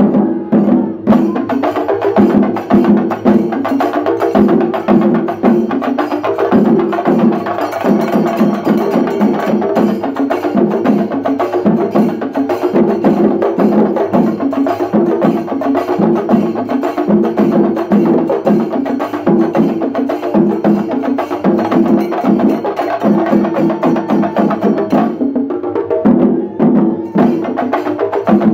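Shinkari melam: a group of chenda drums beaten fast and loud with sticks, together with the clash of ilathalam hand cymbals, in a dense driving rhythm. The high metallic jangle drops out briefly near the end, then comes back.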